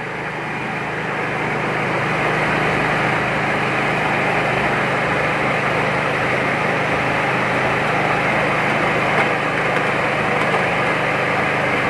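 Mini rice huller running steadily as paddy is fed in and husked: a steady machine hum with a dense rush of grain noise over it. It gets a little louder over the first two seconds.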